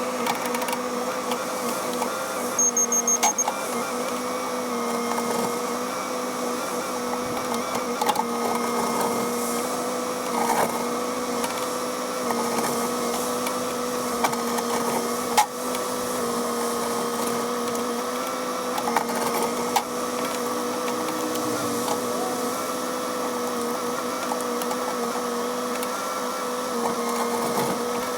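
Cat 308 excavator's diesel engine and hydraulics running steadily under load, a constant droning whine, with occasional sharp knocks and a few quick high beeps about three seconds in.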